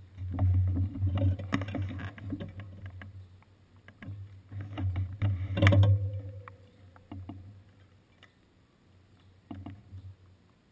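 Knocks, clicks and low rumbles picked up through the bicycle's seat post as the standing bike is handled. The loudest is a sharp metallic knock about six seconds in, which rings on for about a second before fading.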